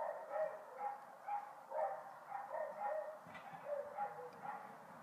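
A small dog yapping over and over in short, high-pitched yaps, about two a second.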